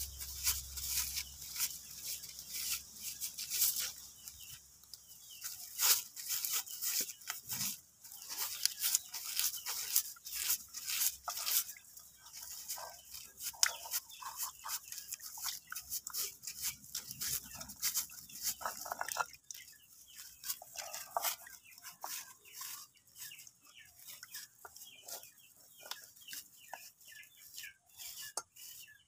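Scratchy, irregular rubbing and scraping as slimy catfish are scrubbed with ash inside a folded leaf against gritty ground, to strip off their slime.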